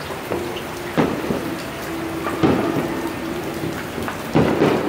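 Distant New Year fireworks and firecrackers going off over steady rain: four sharp bangs, each echoing away, the last two close together near the end.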